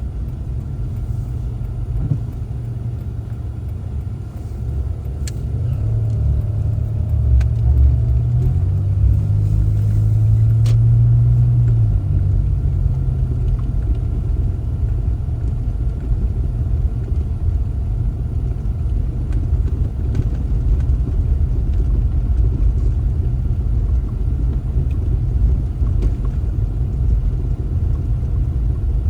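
Car driving, with a steady low engine and road rumble. The engine note rises from about six seconds in and drops back around twelve seconds as the car speeds up and then eases off.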